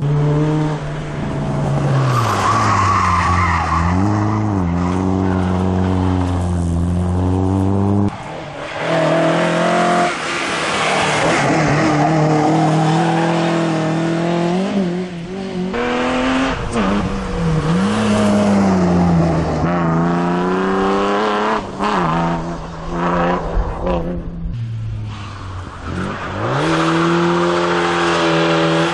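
Race car driven hard, its engine revving up and falling back again and again through gear changes, with tyres squealing at times.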